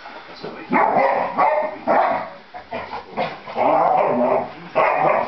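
Dog barking and yapping in rough play, in a string of about six bursts, some short and some drawn out.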